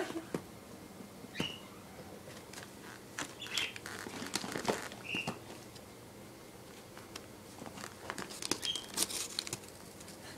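Wrapping paper crinkling and rustling in irregular bursts as a cat paws and bites at wrapped presents. A few short high chirps come through in between.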